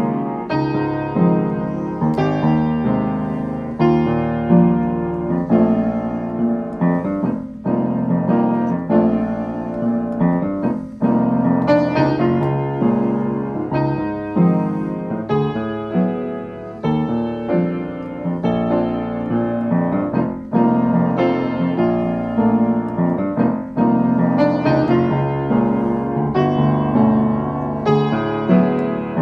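Piano music: a continuous run of notes, each struck and then fading.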